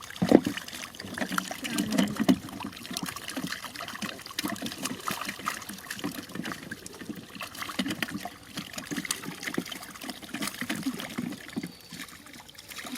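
Shallow muddy water sloshing and trickling as hands work through it feeling for fish, with irregular small splashes; the sharpest splash comes just after the start.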